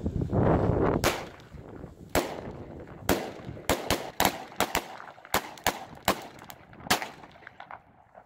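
A lit ground firecracker going off in a series of about a dozen sharp bangs at uneven intervals, starting about a second in and running for some six seconds as it fizzes and trails smoke across the asphalt. Wind noise rushes on the microphone during the first second.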